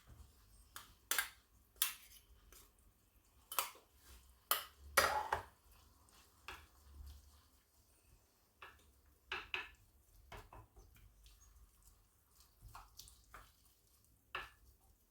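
A utensil clinking and tapping against a tagine pot and dishes as tomato is added to the onions, a dozen or so scattered sharp clicks, the loudest about five seconds in.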